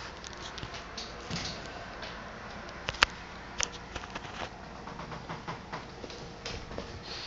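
Scattered light clicks and taps of a kitten's paws and claws on a hardwood floor as it pounces on a boot, with one sharper click about three seconds in.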